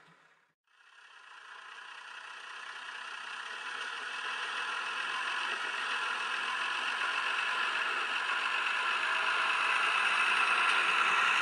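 Märklin Minex 3420 model diesel locomotive running on metal track, its motor whirring and its wheels rattling over the rails. The sound drops out briefly near the start, then grows steadily louder as the locomotive approaches.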